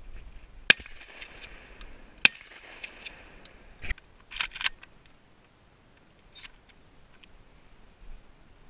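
Two 12-gauge Mossberg 500 pump-shotgun shots about a second and a half apart, each with a lingering echo. A couple of seconds later comes a quick run of sharp metallic clicks as the pump shotgun is handled.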